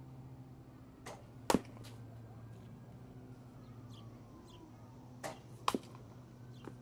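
Baseball bat hitting pitched balls twice, about four seconds apart: each sharp crack comes about half a second after a softer knock. A steady low hum runs underneath.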